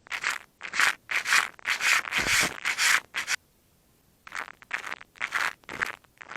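150-grit sandpaper rubbed in quick back-and-forth strokes along the wooden leading edge of a model airplane's horizontal stabilizer, shaping it. The strokes are loudest in the first three seconds, stop for about a second, then resume more lightly.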